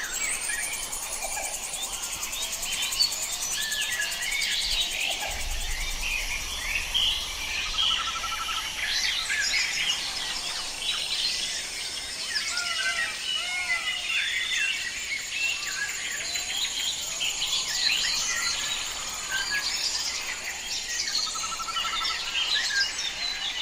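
Forest chorus: many birds calling and chirping at once over a steady high insect drone, with a short rattling trill heard twice.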